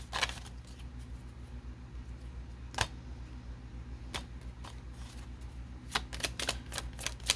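Tarot cards being handled: a scatter of short, sharp snaps and taps, one about three seconds in and several close together near the end, over a steady low hum.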